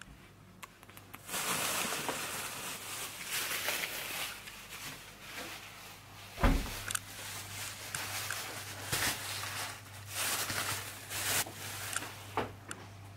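Irregular rustling and handling noises with a few light knocks, as of someone moving about with a handheld camera, and one louder thump about six and a half seconds in. A faint steady low hum runs underneath after the thump.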